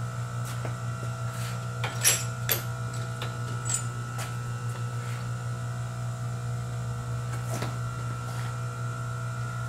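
Steady electrical hum in a machine shop, with a few light metallic clicks and clinks over it, the sharpest about two seconds in.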